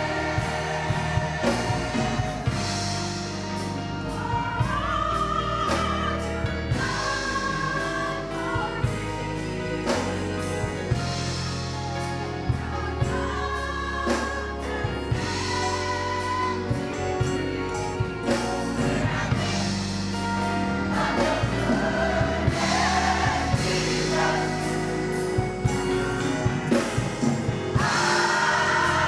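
Gospel choir singing with instrumental backing: a steady bass line and a regular beat.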